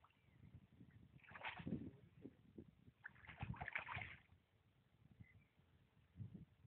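Hooked carp splashing at the water's surface in two short, faint bursts about a second and a half apart, then a softer low splash near the end.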